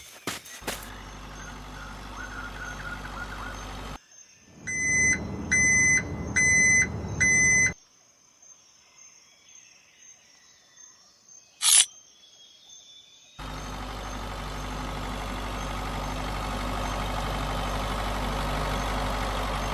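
A small electric motor of a toy-scale vehicle whirs steadily. It stops, a run of four short electronic beeps follows, and after a quiet spell with one sharp squeak the motor runs again, louder, for the last six seconds.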